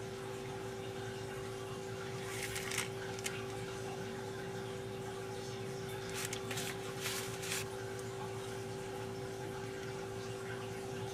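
Steady background hum holding one clear constant tone, broken by a few brief rustles of the paper piping cone being handled and squeezed, once about two to three seconds in and again around six to seven and a half seconds in.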